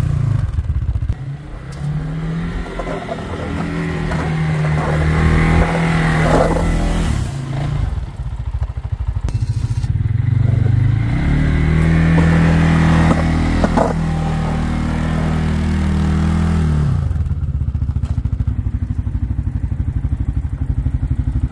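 2023 CFMoto CForce 600 ATV's single-cylinder engine revving up and easing off twice while it pushes a snow plow blade through snow, then settling into a steady idle for the last few seconds.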